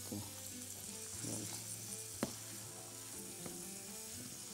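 Beef sausage, garlic and onion frying in butter in a frying pan: a soft, steady sizzle while a utensil stirs the pan, with a single sharp tap about two seconds in.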